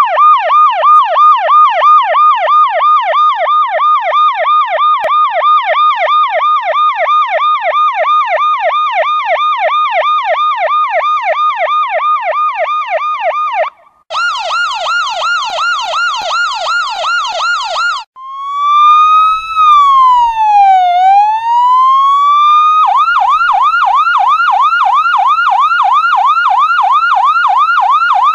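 Electronic police siren cycling through its tones. A fast repeating yelp of about three sweeps a second runs for roughly the first half, breaks off briefly, and switches to a quicker, higher-pitched yelp. Past the middle it changes to one slow wail that falls and rises again, then returns to a fast yelp near the end.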